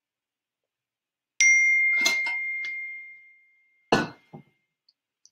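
A single bright ding that rings out and fades over about two seconds, with a few light clicks over it, then a dull thump about four seconds in.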